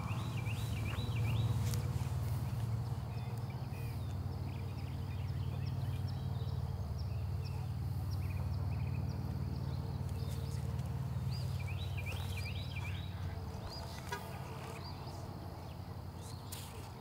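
Outdoor park ambience: a steady low rumble with small birds chirping in quick repeated phrases, once near the start and again about two-thirds of the way through.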